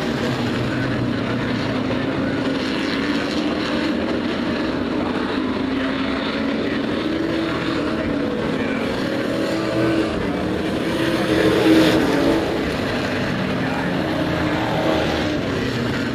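Several sport race truck engines running together at racing speed on an oval, a steady overlapping drone of engines that grows louder for a moment about eleven seconds in.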